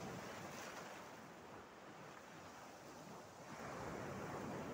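Sea waves washing on the shore, a steady hiss of surf that eases off and then swells again about three and a half seconds in.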